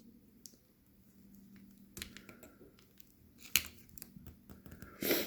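Faint, scattered clicks and scratches of hand work on a small robot's electronics, working the hot-glued speed controller and its wires loose. There is a sharper click about three and a half seconds in and a short, louder rustle near the end.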